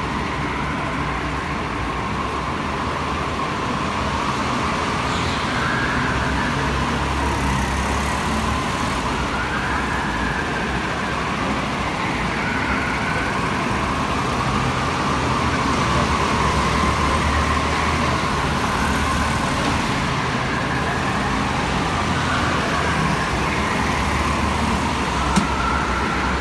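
Go-karts running on an indoor track: a steady loud drone, with whines that rise and fall every few seconds as karts speed up and pass. A single sharp click near the end.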